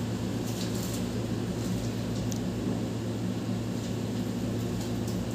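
A steady low hum over a faint hiss, the background noise of a room heard through a headset microphone, with no distinct event.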